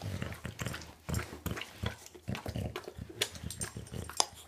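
A bulldog licking and gnawing at a swirl lollipop: irregular wet smacking and clicking, several a second.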